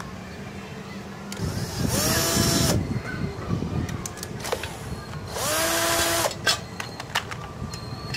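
Handheld electric power driver undoing the magneto cover screws of a Honda CD-70 engine: two runs of about a second each, the motor's pitch rising as it spins up and then holding steady. A few light metal clicks follow near the end.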